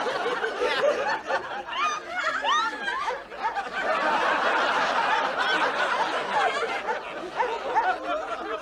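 Sitcom studio audience laughing, a sustained wave of many people laughing together after a punchline.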